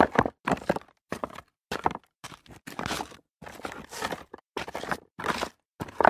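Footsteps walking over loose rock debris, each step a short crunch of shifting stones, a little under two steps a second with brief silences between.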